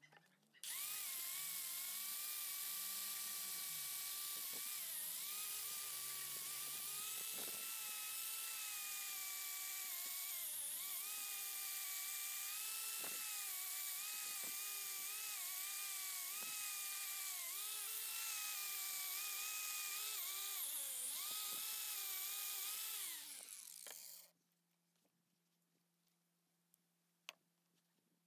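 Angle grinder with a wire wheel brush running against a rusty bench vise, scouring off the rust. Its whine wavers and dips in pitch as the brush is pressed onto the metal. It is switched off after about 23 seconds and winds down.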